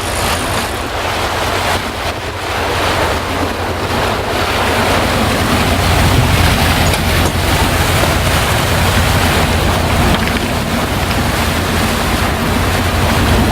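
A fishing boat's engine running with a steady low hum under the rush of wind and water, with wind buffeting the microphone.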